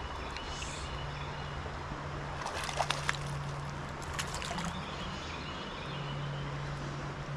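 Shallow river flowing over rocks: a steady rushing trickle of water, with a few sharp clicks about three seconds in.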